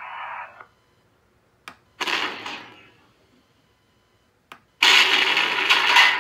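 Tank cannon-fire sound effects played by an RC tank sound board through its small speaker: a shot about two seconds in that dies away within a second, and a louder, longer blast near the end, each preceded by a short click.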